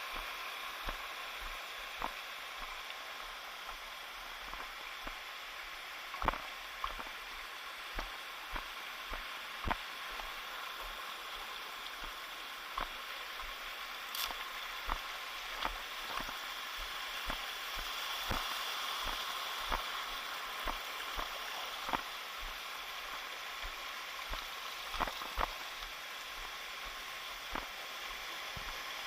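Running water hissing steadily, with irregular sharp clicks and knocks through it.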